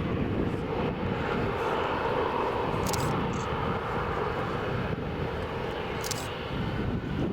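Bombardier Global Express business jet's twin Rolls-Royce BR710 turbofans running at takeoff power, a steady jet noise. Brief faint high ticks come about three and six seconds in.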